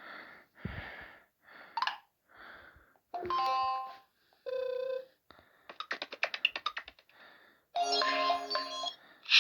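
Motorola Droid Turbo notification tones previewed one after another: short chimes and blips of a second or less each with brief gaps, including a quick rising chirp, a fast run of repeated blips about six seconds in, and a fuller chime near the end.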